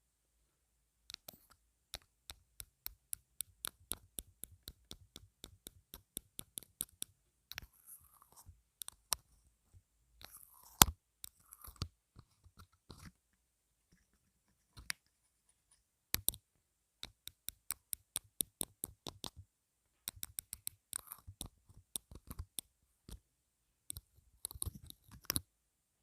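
Rapid runs of sharp taps and clicks right against an earphone microphone, several a second, stopping and starting, with one louder click in the middle.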